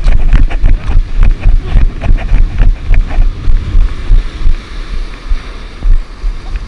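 Heavy wind buffeting the microphone over the wash of surf, with crunching footsteps on a pebbly beach through the first few seconds.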